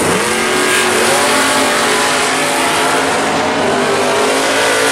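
Two drag-racing cars launching side by side at wide-open throttle. Engine pitch sweeps up sharply at the start, then both engines run hard and steady as they pull away down the strip.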